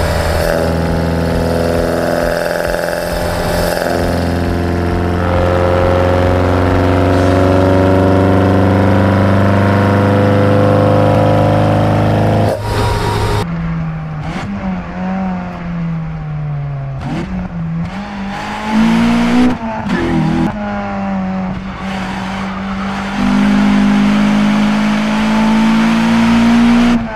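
Toyota 4A-GE twin-cam inline-four heard through its individual throttle-body intakes, revs held steady for about thirteen seconds. Then, from inside the car, the engine note drops, climbs and jumps repeatedly as the car is driven through the gears.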